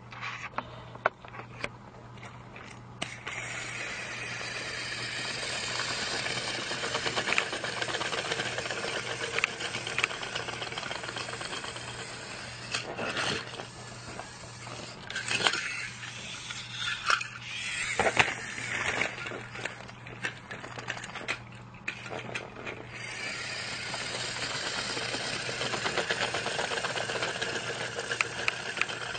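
Motorized toy trains running on plastic track: a steady whirring, rattling motor-and-wheel noise, with sharp clicks and knocks now and then.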